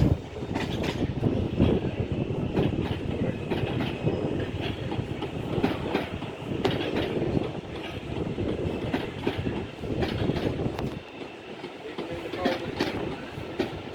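TransPennine Express Class 397 electric train running into the station, its wheels clicking over rail joints and points under a steady rumble. The rumble drops away about eleven seconds in.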